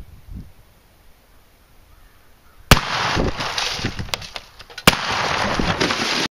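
Two 12-gauge shotgun blasts about two seconds apart, 00 buckshot hitting a CRT computer monitor: the first shatters the picture tube and the second knocks the monitor off its stand. Each shot is followed by a loud noisy rush that carries on until the sound cuts off abruptly near the end.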